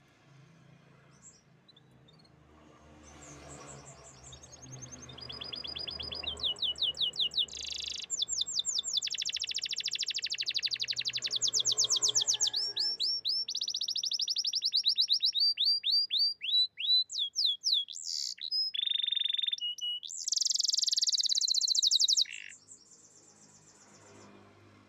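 Canary singing a long song of rapid trills, each a fast run of repeated high notes, switching from one trill to the next at different pitches. The song builds up over the first few seconds and stops abruptly about 22 seconds in.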